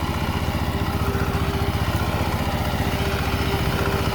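Rice reaper's engine running steadily under harvesting, with a fast, even firing beat.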